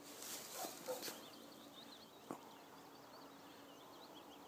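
Cloth rustling against a clip-on microphone as the jacket moves while a knife is held up and turned in hand. One sharp click comes about two seconds in. Faint high chirping runs throughout.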